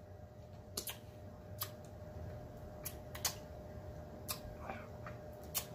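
Mouth sounds of eating: quiet, scattered lip smacks and wet clicks from chewing and licking sauce off the fingers, coming irregularly every half second or so, over a faint steady hum.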